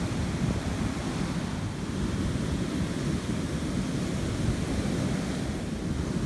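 Heavy ocean surf breaking and washing up the beach during a king tide, with wind buffeting the microphone.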